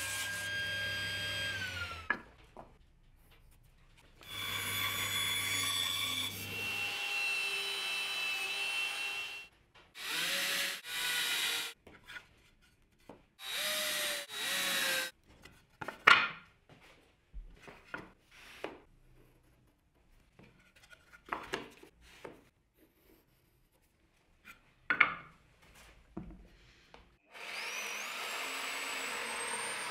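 A string of woodworking power-tool sounds. At the start a table saw runs and spins down. Another power tool then runs steadily for about five seconds, a drill/driver drives screws in a few short bursts, and scattered knocks and taps follow. Near the end a jigsaw starts up with a rising whine and cuts into a hardwood board.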